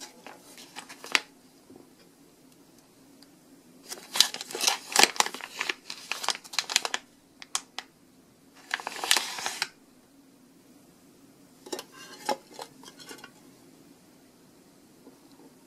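Clear plastic cellophane wrapper on a candy tin crinkling and tearing as it is handled and pulled off. It comes in several bursts of crackle: a short one near the start, a long one about four seconds in, and shorter ones about nine and twelve seconds in.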